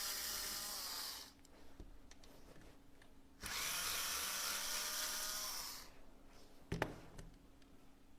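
Small electric screwdriver running in two bursts of about two seconds each, backing screws out of a graphics card, with a high motor whine. A single sharp click comes about seven seconds in.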